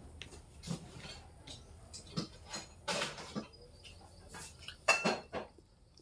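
Eating utensil clinking and scraping against a plate of noodles in scattered short knocks, the loudest about three seconds and five seconds in.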